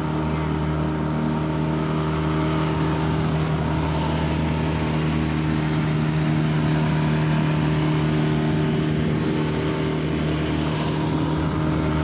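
Motorboat engine running at a steady pitch while the boat cruises, with a hiss of water and air over it.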